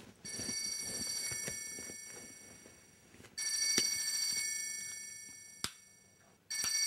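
Mobile phone ringing: a bell-like electronic ring that sounds, fades and starts again about every three seconds. A sharp click comes just before the third ring.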